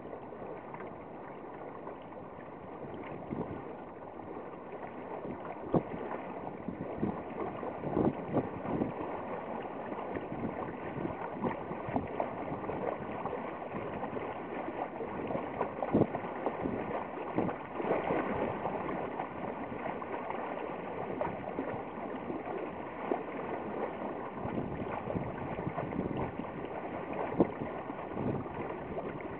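Water splashing and lapping against the hull of a small sailboat under way, with irregular slaps over a steady rush.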